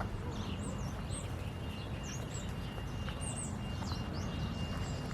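Small birds chirping in short, quick high notes that rise and fall, scattered through, over a steady low outdoor rumble.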